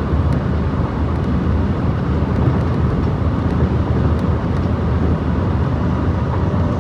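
Steady road and engine noise heard from inside a moving car's cabin, a low rumble with no sudden events.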